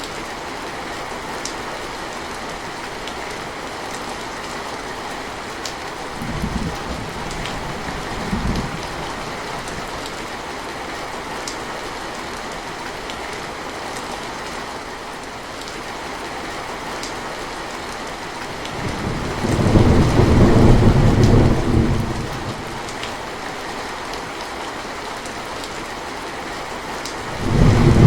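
Steady rainfall with thunder: two brief low rumbles about a quarter of the way in, a longer, louder roll of thunder about two-thirds through, and another roll beginning near the end.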